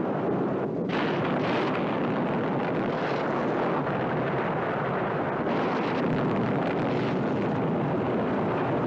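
A steady rushing noise at an even level, with no distinct events.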